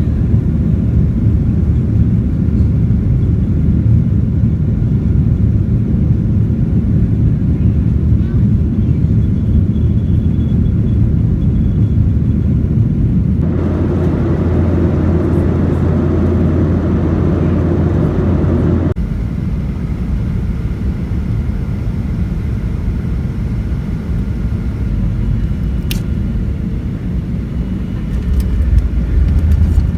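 Steady low rumble of an airliner cabin's engine noise. It changes abruptly about 13 seconds in and again about 19 seconds in.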